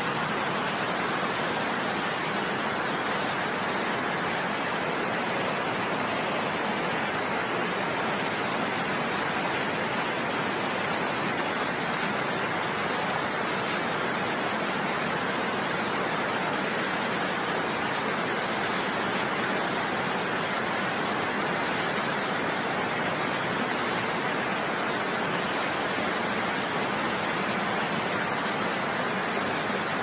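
Small waterfall and rocky stream rushing steadily, a constant even sound of running water.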